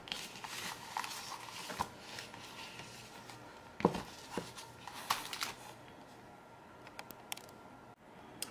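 Paper planner inserts being handled and set down on a wooden table: soft paper rustling with a few light taps, the loudest about four seconds in.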